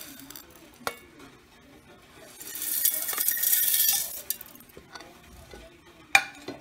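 Dry-roasted chana dal, urad dal, coriander seeds and cumin pouring off a plate into an empty stainless steel mixer-grinder jar: a rattling, hissing rush of hard grains on steel for about two seconds, in the middle. A click comes about a second in, and a sharp knock comes near the end.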